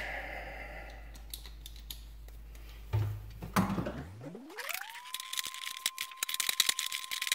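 Slip-joint pliers clicking and rattling against the metal nut at the top of a bathroom sink's pop-up drain body as it is gripped and turned loose. There is a single knock about three seconds in, then a quick run of sharp clicks in the last couple of seconds.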